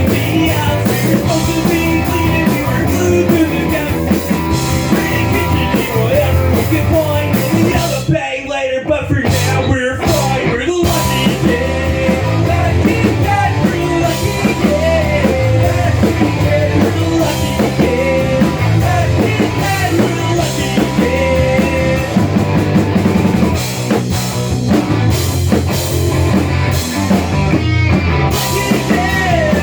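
Live punk rock band playing loud on drum kit and electric guitars, with brief stop-start gaps about eight to eleven seconds in.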